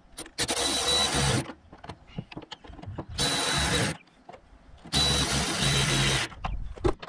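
Cordless electric ratchet running in three short bursts of about a second each, spinning nuts onto the bolts of a trolling-motor mounting plate, with small clicks of tool handling between the bursts.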